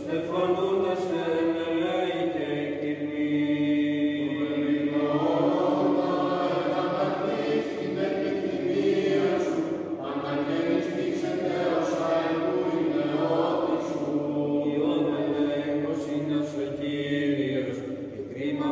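Byzantine chant sung by a choir: a slow, melismatic hymn carried over a steady held low drone note.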